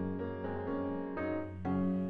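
Instrumental background music of slow, sustained chords that change every half second or so.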